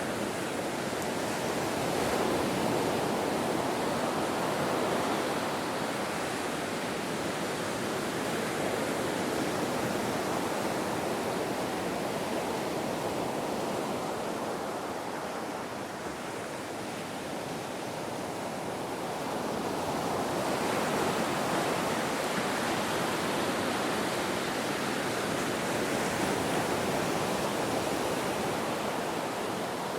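Ocean surf washing onto a beach in a continuous wash, easing off briefly about halfway and swelling again soon after.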